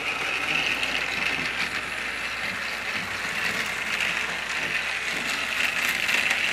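TrackMaster Steelworks Thomas battery-powered toy engine running along plastic track with its cars: a steady whirring of the small motor, gears and wheels.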